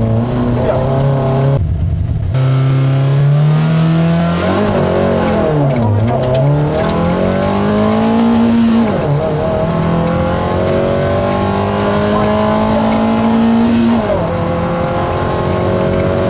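MG F rally car's mid-mounted Rover K-series four-cylinder heard from inside the cabin at racing speed. The engine climbs hard through the revs again and again, with a sharp break for a gear change about two seconds in and dips in pitch around the middle as it slows and picks up again. It then holds high revs before dropping off near the end.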